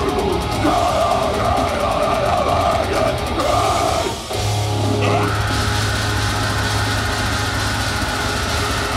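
Deathcore band playing live at full volume: heavily distorted guitars, drums and harsh screamed vocals. About four seconds in, the music breaks off for a moment, then returns on a sustained low note.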